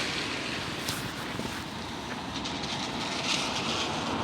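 Steady hiss of road traffic, growing louder near the end as a vehicle approaches.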